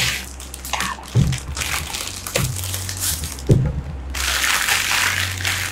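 Plastic shrink-wrap being torn off a box and crumpled by hand, crinkling, loudest near the end, with three dull knocks about a second apart.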